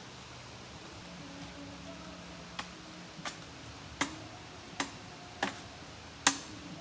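Dry firewood sticks being broken up: six sharp cracks about 0.7 s apart, starting a couple of seconds in and loudest near the end.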